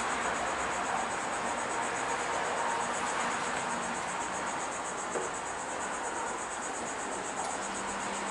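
Outdoor ambience of insects trilling, a fast, even, high-pitched pulsing chirr that goes on steadily, over a steady background hiss.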